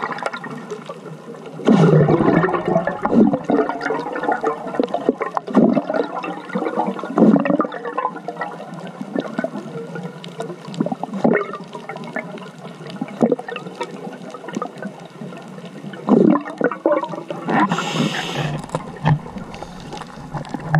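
Underwater sound of a scuba diver's breathing heard through a camera housing: surges of exhaled bubbles rushing and gurgling about two seconds in and again around sixteen seconds, with smaller bubbling between and a brief hiss of the regulator near the end.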